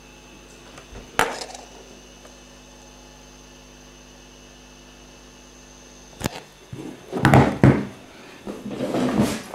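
Handling noise from a boxed phone being moved about on a wooden table: a sharp knock about a second in, then several loud thumps and rustling near the end. A steady hum underneath drops away about six seconds in.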